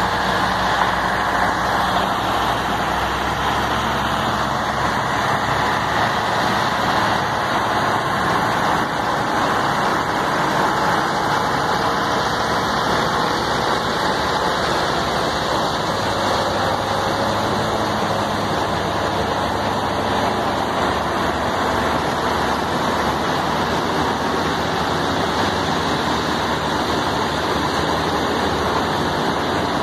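Several heavy diesel truck engines running hard under load as the trucks, coupled in line by cables, pull a heavy trailer; a steady, dense engine noise with no break.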